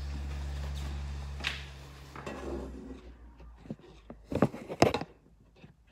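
A low steady hum that dies away, then scattered soft knocks and rustles building to two loud, sharp thumps close together about four and a half seconds in: the recording camera being handled at close range as someone reaches it.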